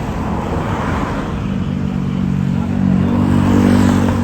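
A large tour bus engine running, growing louder and a little higher in pitch from about a second and a half in.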